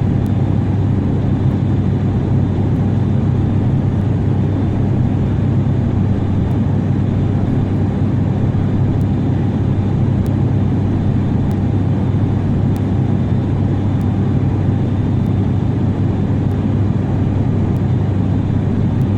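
Jet airliner cabin noise: a steady low rumble of engines and airflow, with a faint high steady tone above it.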